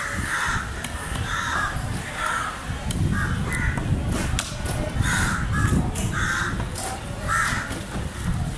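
Crows cawing over and over, short calls coming every half second or so. Mixed with them are sharp knocks of a cleaver chopping fish on a wooden block.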